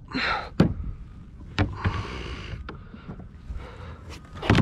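Water splashing against a kayak, with a few sharp knocks on the hull, while a hooked tarpon is played alongside.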